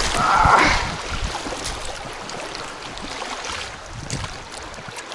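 River water washing and splashing around an inflatable packraft crossing the current, loudest in the first second, then settling to a quieter steady wash.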